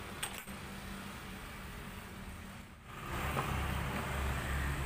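Light metallic clicks of a small puller and a saw armature being handled by hand. From about three seconds in, a louder steady low rumble joins in.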